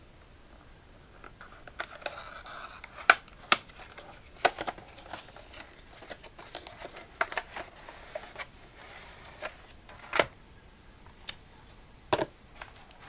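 Small paperboard product box being opened by hand: soft scraping and rubbing of the cardboard with an irregular string of sharp taps and clicks, the loudest about three seconds in and near ten seconds, as the box is pulled apart and the inner tray slid out.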